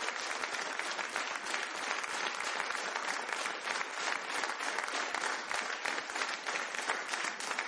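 Audience applauding: many hands clapping together in a steady, dense wash of claps.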